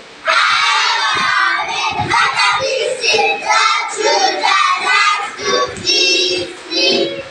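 Children singing.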